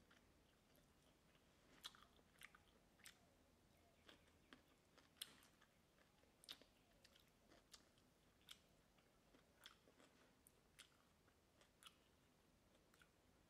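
Very faint, irregular clicks and taps of wooden chopsticks handling noodles in a bowl, with quiet eating sounds, over a near-silent room.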